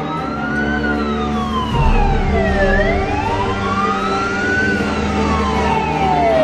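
Fire engine siren wailing, rising and falling slowly about every four seconds, over the low rumble of a running vehicle.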